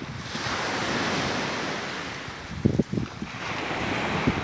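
Small waves breaking and washing up on a sandy beach, a steady swelling rush, with wind on the microphone and a few low thumps a little before three seconds in.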